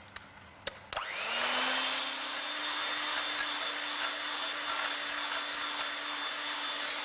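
A few light knocks, then an electric mixer switched on about a second in, coming up to speed and running steadily with a constant whine as it beats warm egg whites and sugar into meringue.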